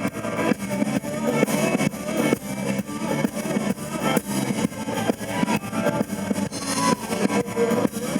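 Blues-rock band playing an instrumental passage of the song, guitar-led, over a steady drum beat.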